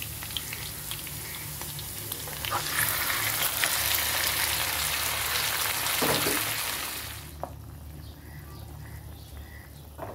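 Sliced onions sizzling in hot oil in a frying pan; the sizzle grows louder about two and a half seconds in as marinated beef goes into the pan. About seven seconds in it drops to a quieter bubbling of the curry simmering.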